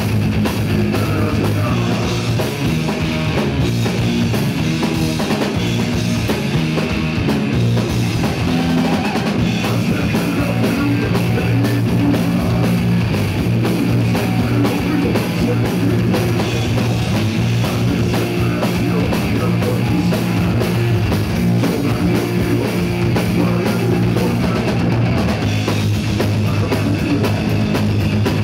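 Rock band playing live and loud: electric bass, electric guitar and drum kit, with held low bass notes and a steady driving beat.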